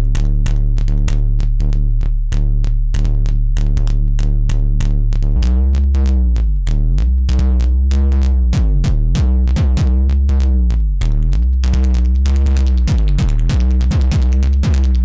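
Noise Engineering Basimilus Iteritas Alter Eurorack drum synthesizer module firing a fast, even stream of electronic hits, about six a second, over a sustained bass tone. A little over five seconds in the low tone shifts and its overtones start sweeping down and back up every two seconds or so; near the end the hits turn brighter and noisier.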